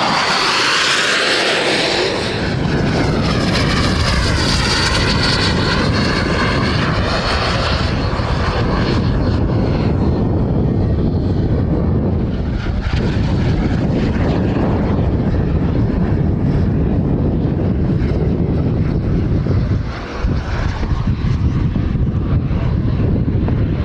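Turbine engine of a radio-controlled model jet flying past: a high whine that wavers up and down over the first several seconds, then a steady, heavy rushing sound of the engine, dipping briefly near the end.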